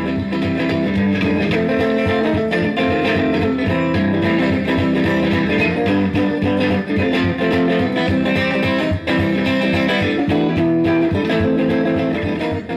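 Guitar music: chords strummed at a steady rhythm.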